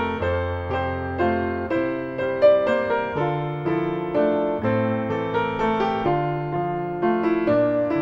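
Background piano music: a gentle melody of single notes over held bass notes that change about once a second.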